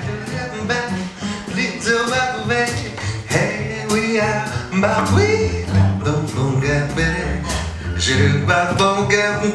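Live band music: a male singer with a hand microphone over a plucked upright double bass, with a steady beat.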